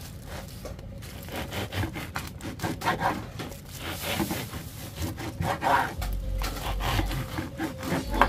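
Bread knife sawing back and forth through the crisp crust of a filled sandwich roll and onto a wooden cutting board: repeated rasping, crunchy strokes.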